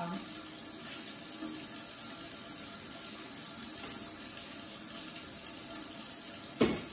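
Kitchen faucet running hot water in a steady stream. A single sharp knock sounds near the end.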